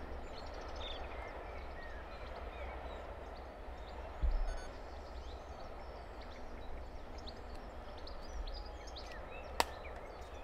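Outdoor ambience of birds chirping and singing, with wind rumbling on the microphone and a single sharp click near the end.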